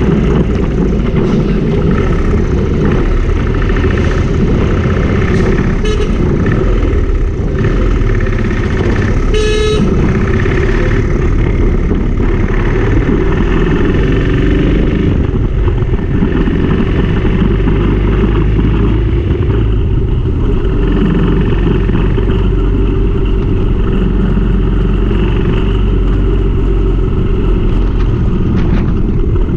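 Motorcycle riding along a city street: a steady engine and road rumble with wind noise. A vehicle horn toots briefly about nine or ten seconds in.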